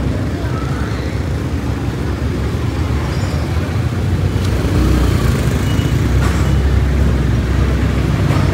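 Low rumble of motor-vehicle traffic on the street, growing louder about four seconds in as a vehicle comes close.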